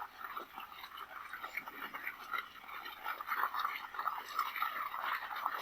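Steady rain falling, a dense, irregular pattering of drops.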